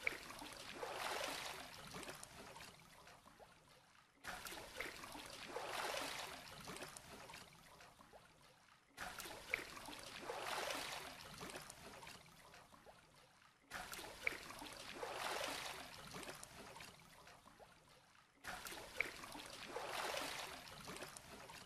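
Faint oar strokes swishing through water as a small wooden boat is rowed, five even strokes about four and a half seconds apart, each a soft wash of water sound.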